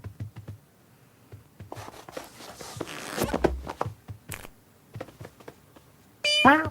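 Cartoon sound effects: soft scrapes, taps and a rustling swish, then near the end a short, loud cat cry that falls in pitch.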